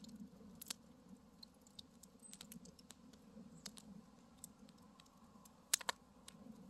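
Wood fire crackling: faint, irregular snaps and pops from the burning logs, with two sharper pops close together near the end.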